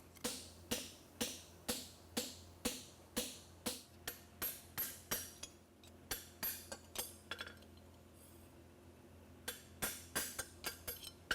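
Farrier's hammer striking a steel horseshoe on an anvil, flattening the shoe, about two ringing blows a second. The blows pause for about two seconds, then come in a quicker run near the end.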